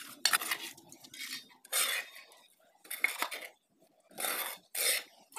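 Small metal plate scraped across a concrete floor in about six short strokes, each a fraction of a second long with short pauses between, scooping up dirt and ash.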